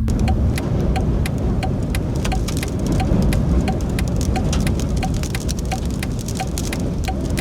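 Dust-storm wind rushing and buffeting, with a constant scatter of small sharp hits. A faint regular tick sounds about three times a second underneath.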